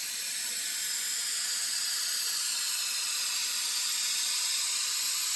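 Aerosol can of truck bed coating spraying in one steady, continuous hiss.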